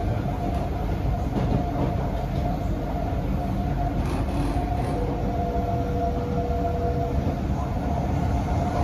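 SMRT C151C metro train (Kawasaki & CRRC Sifang) running at speed, heard from inside the carriage: a steady rumble of wheels on rail with a steady motor whine, joined by a second, lower tone for about two seconds midway.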